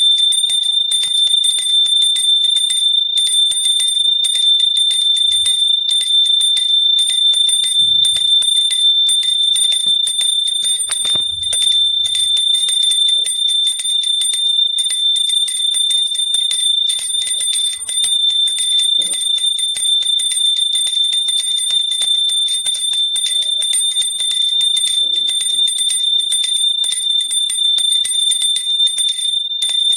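Small metal hand bell rung rapidly and without pause, a high-pitched ringing tone renewed by many clapper strikes a second.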